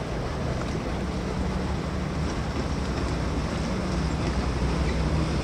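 Boat engine running steadily under way, a low even hum mixed with water and wind noise.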